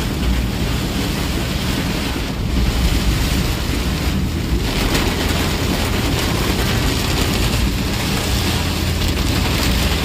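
Heavy rain beating on a moving vehicle, heard from inside the cabin: a steady rush of rain over the low, even rumble of the vehicle driving on the wet road.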